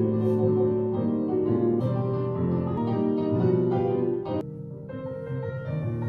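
Piano accompaniment for a ballet barre exercise: struck piano notes and chords, dipping briefly about four and a half seconds in, with a few faint clicks.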